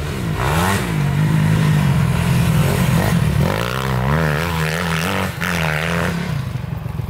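Dirt bike engines revving, the throttle opened and closed again and again so the pitch rises and falls, as one bike rides slowly past close by.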